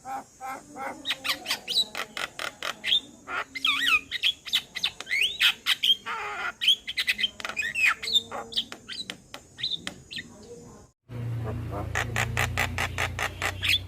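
Male Javan myna calling: rapid harsh clicks and squawks mixed with short gliding whistles. The sound breaks off abruptly about eleven seconds in, then the chatter resumes over a low hum.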